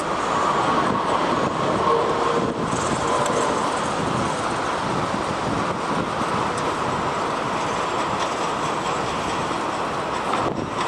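Jet engine noise of an Airbus A330 airliner passing on final approach: a steady rushing sound with a faint whine in the first few seconds.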